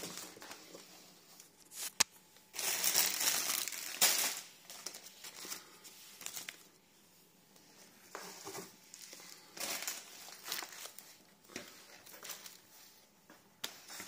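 Plastic and paper grocery bags rustling and crinkling in irregular bursts as groceries are handled, loudest about three to four seconds in. A single sharp click comes about two seconds in.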